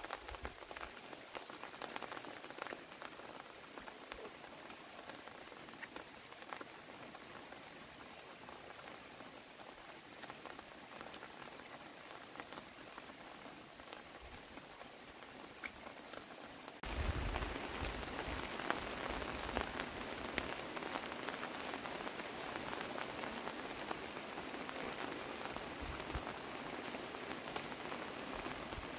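Steady rain falling on dense leaves and grass, a continuous hiss with scattered drop ticks. It gets clearly louder partway through, about two-thirds of the way in.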